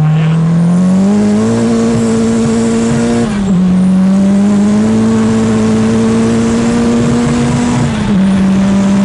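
Vehicle engine pulling hard at high speed, its pitch climbing slowly in a high gear, then dropping sharply at an upshift about three seconds in and again near the end, over steady wind and road rush.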